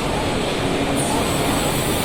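Steady, dense din of a machine-tool exhibition hall: machinery running with faint background chatter mixed in.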